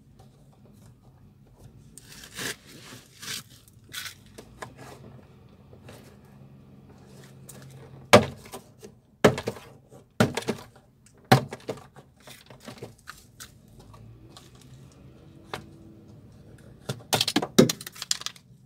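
Plastic retaining clips of a Hyundai Solaris door trim panel popping loose as the panel is pried and pulled off the door: a series of sharp cracks and snaps. Four loud ones come about a second apart midway, and a quick cluster near the end.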